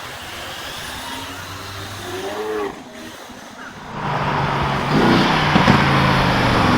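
A sports car's engine comes in loud about two-thirds of the way through and keeps running with a deep, even note. Before that there is a quieter stretch of background noise.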